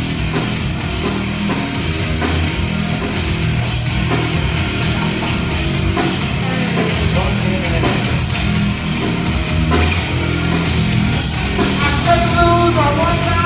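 Rap-metal band playing live, loud: heavy distorted guitars, bass and pounding drums in a passage without vocals.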